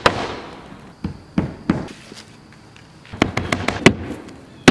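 Hammer driving roofing nails through asphalt shingles: three strikes about a second in, then a quick run of about six strikes past the three-second mark.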